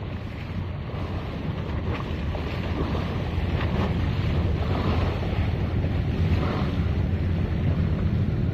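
Wind on the microphone, a low rumble that grows louder over the first few seconds, with choppy harbour water splashing against a concrete quay wall.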